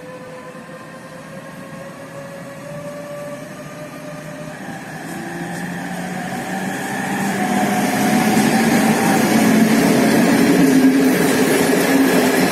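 MÁV class 480 Bombardier TRAXX electric locomotive pulling an intercity train away from the platform, its electric drive whining with pitches that slowly rise as it gathers speed. The sound grows steadily louder as the locomotive comes up and passes, then the passenger coaches rumble by.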